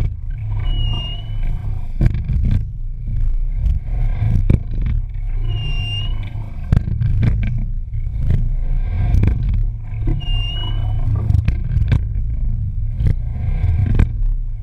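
Single scull under way at a steady, easy rate, heard from a microphone on the rigger: a loud rumble of water and wind on the mic, sharp clunks from the oars and slide, and a short squeak once each stroke, about every five seconds.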